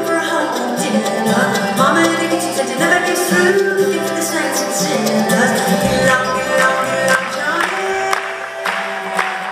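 Live bluegrass-style song: a woman singing lead over banjo picking, with guitar and upright bass accompaniment.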